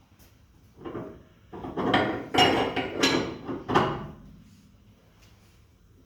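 Ratchet wrench turning the threaded rod of a homemade coil-spring compressor to unwind it and let a coil spring down, in about five rasping strokes between one and four seconds in.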